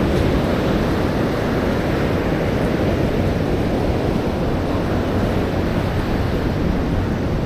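Steady noise of ocean surf breaking on a beach, mixed with wind buffeting the microphone.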